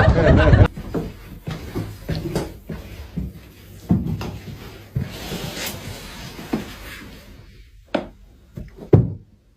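Scattered knocks, taps and rustling from objects being handled or bumped, with two sharper knocks near the end.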